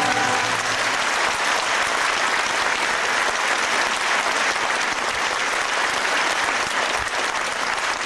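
Theatre audience applauding steadily, just after the orchestra's final held chord ends in the first half-second.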